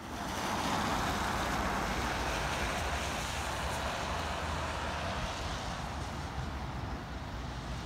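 Steady outdoor street noise: a hiss of distant traffic mixed with wind rumbling on the phone microphone.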